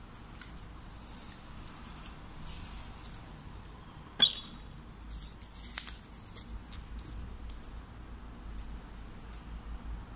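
Plastic handling sounds from a portable thermal label printer and its paper roll: soft clicks, taps and rustles, with one sharp plastic snap about four seconds in as the printer's lid is opened.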